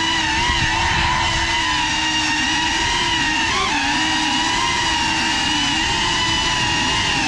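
GEPRC CineLog35 6S cinewhoop's motors and ducted propellers whining at a fairly steady pitch, dipping briefly about three and a half seconds in as the throttle changes.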